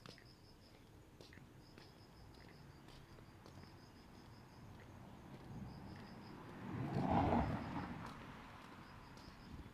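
Insects chirping in short trains of rapid, high-pitched pulses, with a vehicle passing that swells up and fades away about seven seconds in.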